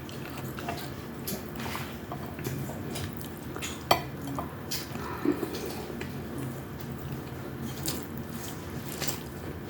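Eating at a table: scattered light clicks and taps of spoons against dishes, the sharpest about four seconds in, over a steady low hum.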